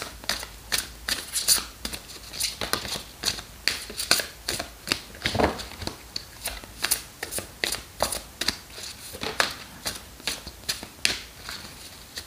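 A deck of oracle cards shuffled by hand, the cards slapping and clicking against each other in quick, irregular taps, several a second. There is one duller thump about halfway through.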